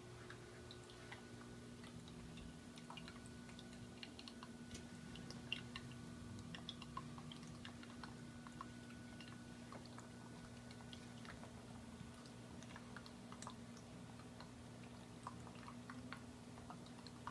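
Faint steady hum of a reef aquarium's pump and water circulation, with scattered faint irregular clicks and ticks.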